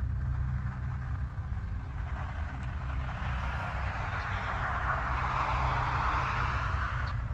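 A vehicle going by: its noise swells over several seconds and then cuts off suddenly, over a steady low rumble.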